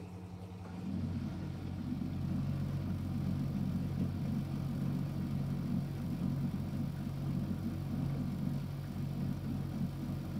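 Miele Novotronic W715 washing machine starts a louder, low mechanical hum about a second in, then runs on steadily with a rough, churning texture.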